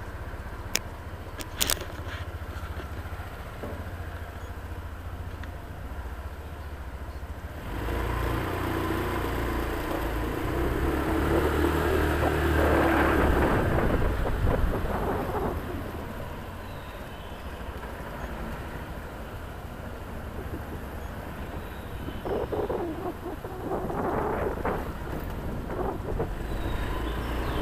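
Motor scooter's small engine running low and steady, then louder from about eight seconds in as the scooter pulls away and rides, the engine sound rising and falling. A couple of sharp clicks near the start as the camera pole is handled.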